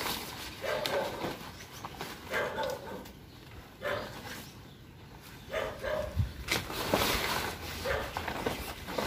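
Nylon tent canopy fabric rustling and flapping as it is pulled over a folding tent frame by hand, with a dog barking several times.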